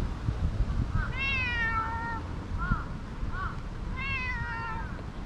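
Stray cat meowing twice, two drawn-out meows of about a second each, with two short chirps in between.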